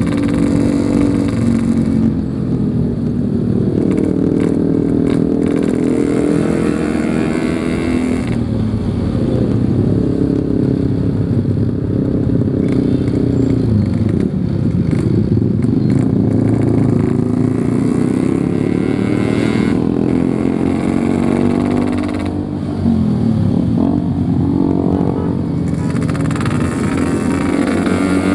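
Yamaha RX-King's 135cc two-stroke single-cylinder engine under way. It revs up and drops back again and again as it is ridden through the gears.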